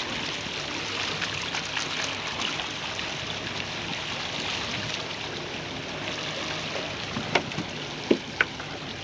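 Sea water rushing and splashing steadily along the side of a boat under way at trolling speed, with three short sharp knocks near the end.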